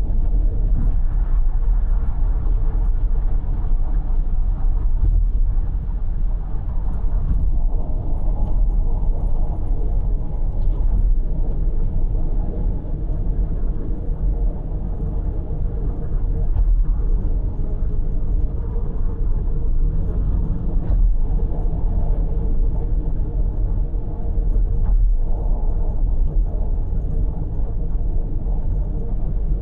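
Car cruising on an expressway, heard from inside the cabin: a steady low rumble of road and engine noise.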